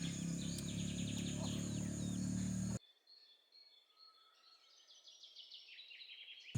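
Outdoor ambience of birds and insects chirping in rapid repeated trills over a steady low hum. About three seconds in the sound cuts out abruptly, leaving only faint chirping that slowly grows louder.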